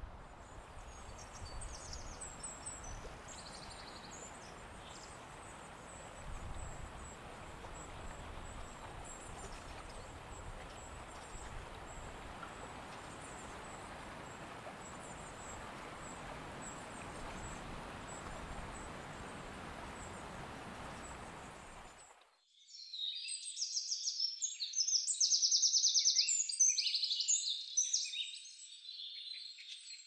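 Steady outdoor background noise with faint, high bird chirps. About two-thirds of the way in it cuts off suddenly to loud, dense high-pitched chirping of many birds.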